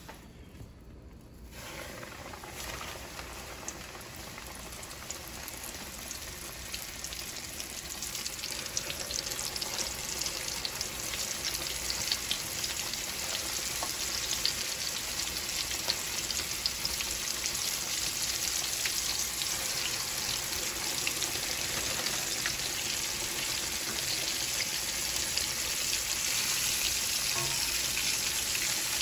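Flour-coated chicken strips sizzling and crackling as they fry in hot oil in a shallow pan. The sizzle starts about two seconds in and grows steadily louder.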